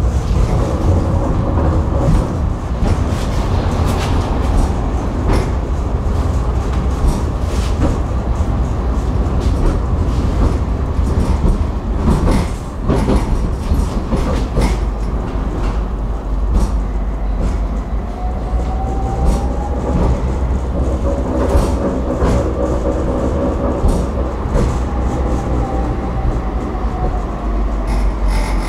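Tram running on its rails, heard from on board: a steady low rumble with scattered clicks and knocks of the wheels on the track. In the second half a whine rises and then falls in pitch as the tram changes speed.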